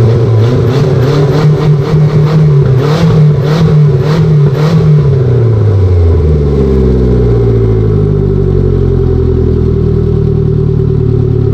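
1999 Kia Sportage four-cylinder engine held at a raised idle with a ragged crackle, then dropping back about halfway through to a steady idle. It runs loud, with an exhaust the owner says needs fixing.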